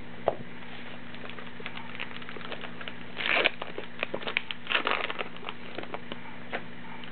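Baseball card pack wrapper being torn open and crinkled by hand, in two crackly bursts about three and five seconds in, with small rustles and clicks around them. A single sharp tap comes just after the start.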